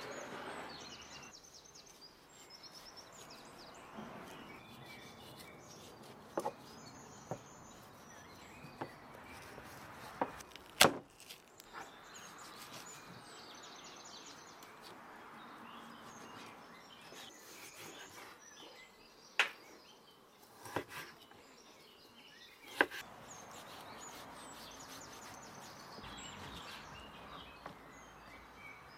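A knife cutting a raw lamb leg on a wooden board, with a few sharp knocks of the blade striking the board, the loudest about eleven seconds in and a cluster around twenty seconds. Birds chirp faintly behind it.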